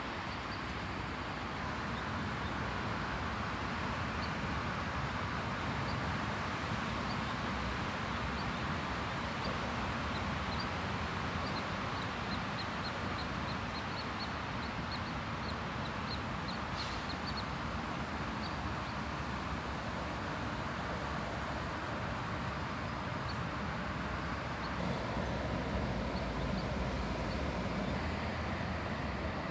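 Steady background noise of distant traffic at the waterside at night. A run of short, high chirps comes through from about ten to eighteen seconds in.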